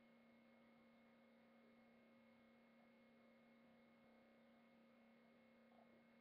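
Near silence: a faint, steady electrical hum over low hiss.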